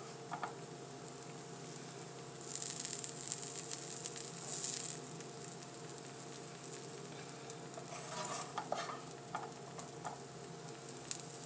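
Butter and chicken sizzling quietly in frying pans, with a utensil scraping and moving the chicken a few seconds in and again near the end.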